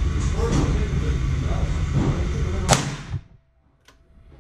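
A single shot from a Ruger Blackhawk single-action revolver in .45 ACP, firing a cast 252-grain semi-wadcutter handload: one sharp crack about two and a half seconds in, over a steady outdoor rumble. Right after the shot the sound drops almost to nothing and slowly comes back, as the recorder's automatic level control recovers from the blast.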